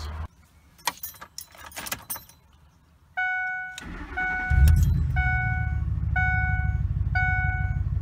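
Keys jingling, then a dashboard warning chime starts repeating about twice a second as the 2006 Ford F-150's 5.4-litre Triton V8 cranks briefly and catches about four and a half seconds in. It settles into a steady idle with a freshly replaced ignition coil, which the owner feels runs much better.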